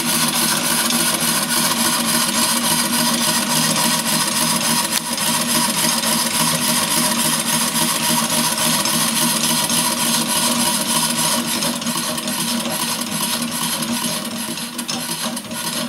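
Model of the 1803 Pen-y-Darren locomotive running fast on compressed air at 2 bar, wheels and flywheel spinning free on a test stand. Its exhaust air and moving gear make a steady, unbroken noise that drops slightly in the last few seconds.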